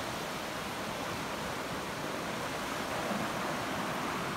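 River running high and fast over shallow riffles: a steady rush of water.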